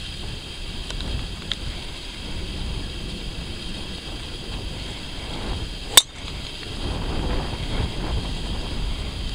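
A driver striking a golf ball off the tee: one sharp, loud crack about six seconds in, over a low steady rumble.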